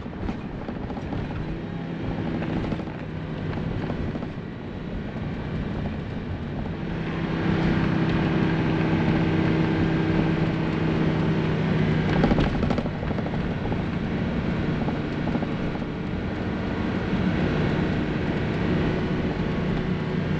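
Motorhome engine and road noise heard from inside the cab while driving, a steady low drone that grows louder about a third of the way through. A brief knock or rattle sounds a little past the middle.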